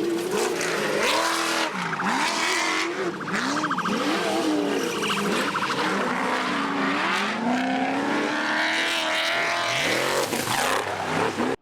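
Off-road race vehicle engines revving hard, pitch swinging up and down every second or so as the throttle is worked, with a second engine overlapping toward the end; the sound cuts off abruptly at the end.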